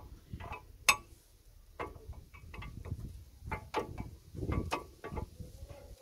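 Disc-brake caliper and brake pads clicking and knocking against each other as the caliper is worked back over the new pads onto the brake disc. An irregular string of sharp clicks, the loudest about a second in.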